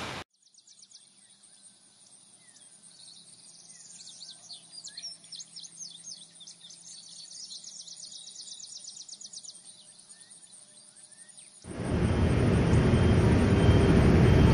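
Small birds chirping and twittering in quick repeated calls over quiet outdoor ambience. Near the end, a loud steady rushing noise cuts in suddenly.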